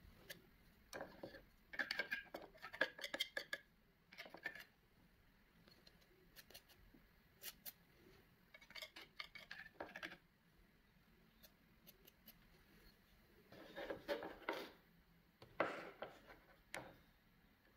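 Metal palette knife scraping and clicking against the palette and painting surface in three short bursts of quiet handling, working acrylic paint.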